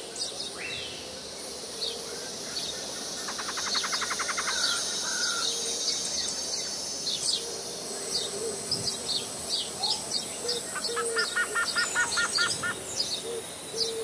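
Several birds chirping and calling, many short high chirps over a steady high background hiss. A rapid trill comes about three and a half seconds in, and a run of about nine quick repeated notes near the end.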